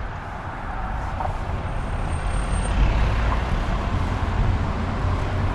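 Car cabin noise while driving: steady low engine and road rumble, getting a little louder about two to three seconds in as the car accelerates away from a roundabout.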